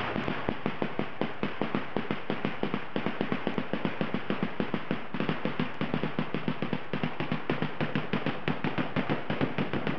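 A string of railway warning detonators (track firecrackers) going off in rapid succession under the wheels of a TU2 diesel locomotive, about five sharp bangs a second. They are a track crew's signal that the train is approaching a damaged track.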